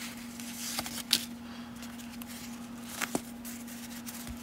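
1992 Topps baseball cards being thumbed off a stack, a faint sliding and rustling of card stock whose rough surface keeps the cards from slipping apart easily. A sharp click comes about a second in and two quick clicks near three seconds, over a steady low hum.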